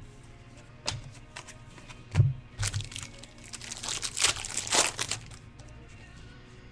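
Foil wrapper of a baseball card pack crinkling as it is handled and opened: a few sharp taps and a low thump, then about three seconds of dense crinkling that stops suddenly.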